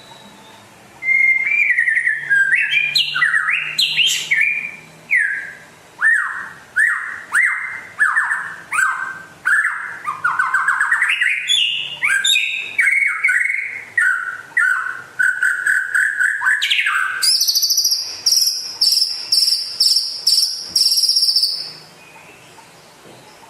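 White-rumped shama (murai batu) singing a long, loud song of varied whistled and sliding notes mixed with sharp clicks, ending in a fast, high trill for its last few seconds.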